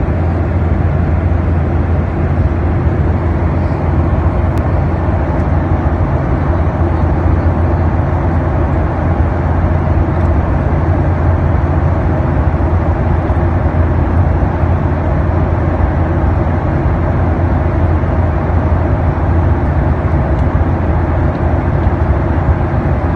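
Steady drone inside an airliner cabin in flight: engine and airflow noise with a strong low hum.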